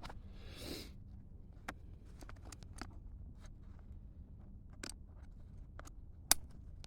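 Handling noise from a Sitka Tool Belt hunting waist pack as a strap is threaded through and worked: a brief fabric swish early on, then scattered light clicks and taps of strap hardware, with one sharper click a little after six seconds.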